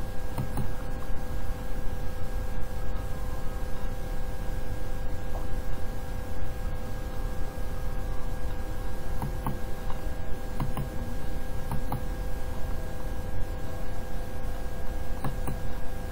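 Steady electrical hum and hiss from the recording setup, a few fixed tones over a low rumble, with a few faint clicks now and then.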